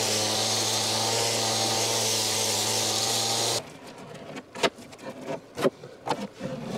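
An electric motor-driven workshop machine runs steadily with a low hum and a hiss, then cuts off abruptly about three and a half seconds in. A few sharp knocks and some clatter from handling material follow.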